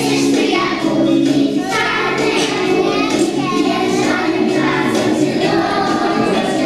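A group of young children singing a song together over recorded backing music.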